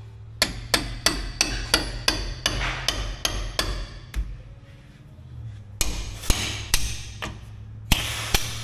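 Hand hammer striking a steel punch to drive a pin out of a Cat D7F dozer's hydraulic cylinder mount: a quick run of about a dozen sharp metal blows, about three a second, then a pause and several more spaced blows.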